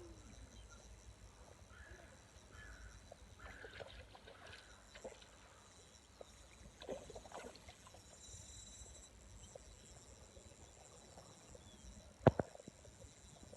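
Pond-side ambience: a steady high insect buzz with a few faint chirps, scattered small clicks and knocks, and one sharp knock about twelve seconds in, the loudest sound.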